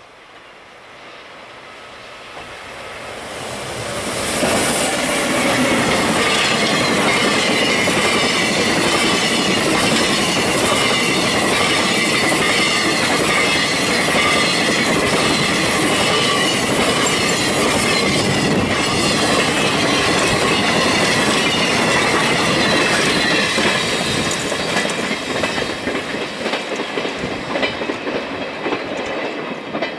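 A container freight train hauled by an EF510 electric locomotive passing at high speed: the rumble builds over the first four seconds as it approaches, then a loud, steady rush of wagon wheels with the clickety-clack of the wheels over the rail joints. Near the end it fades as the last wagons pull away, the joint clicks heard one by one.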